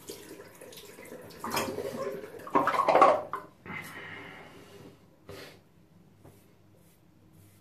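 Water splashing in a bathroom sink in a few short bursts, loudest about one and a half to three seconds in, then fading to faint handling sounds.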